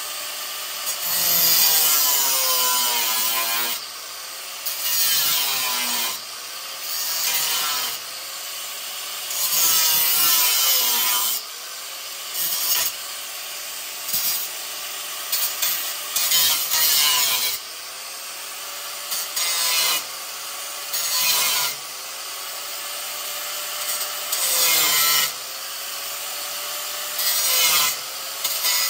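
Pneumatic air hammer with a chisel bit run against steel frame rivets in about a dozen bursts of one to three seconds. Its pitch rises as each burst starts and drops as it is let off.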